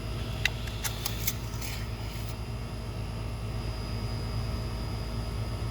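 A few light clicks and a short scrape in the first two seconds as the engine oil dipstick is handled to check the level, over a steady low background hum.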